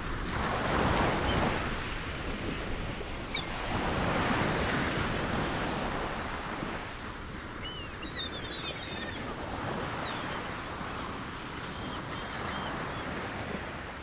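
Sea waves washing in, swelling and fading every few seconds, with a few short high chirps about eight seconds in.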